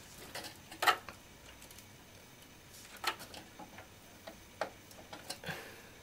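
Power supply cables and their plastic connectors being handled inside a computer case: scattered light clicks and rustles, the sharpest about a second in.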